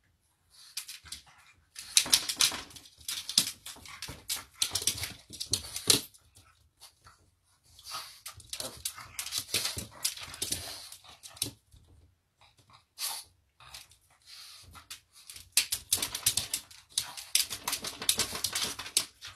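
Pug puppy pawing and jumping at a mirror: its claws click and scratch against the glass and the hard floor in rapid bursts of clatter, three long bursts with a short one in between.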